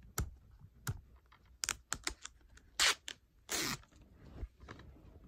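A plastic DVD case being handled and picked at to get it open past a seal along its top. Scattered sharp clicks and taps, with two short, louder scratchy rasps about three seconds in.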